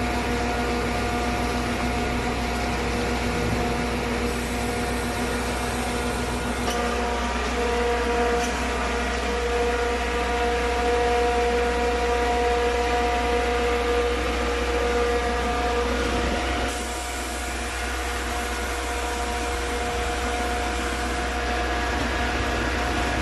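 Aimix ABJZ40C diesel concrete mixer pump running steadily, a constant engine hum with a steady whine over it.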